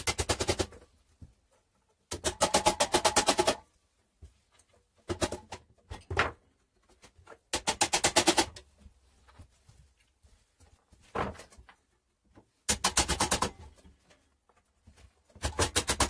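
A hammer tapping end caps into the ends of the lathe's square steel tube frame. The taps come in quick runs of several strikes, about eight runs with short pauses between them, some with a metallic ring.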